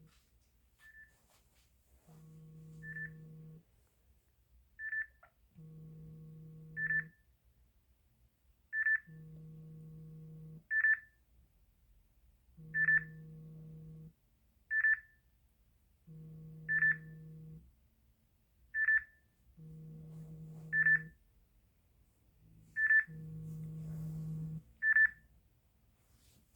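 Samsung Android phone beeping: a short high beep about every two seconds. Alongside it, a lower buzz about a second and a half long comes every three and a half seconds or so.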